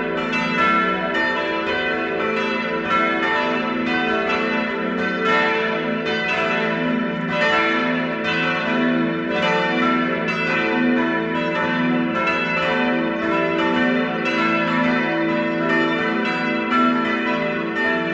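Full peal of four church bells ringing together, their strokes overlapping in a continuous, irregular stream of long ringing tones.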